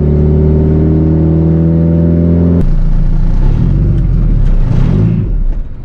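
Honda Civic EG's SOHC VTEC four-cylinder engine, its exhaust set up for a boxer-like sound, heard from inside the cabin while pulling under acceleration with a steady note that climbs slowly. About two and a half seconds in, the note drops abruptly to a lower, uneven rumble.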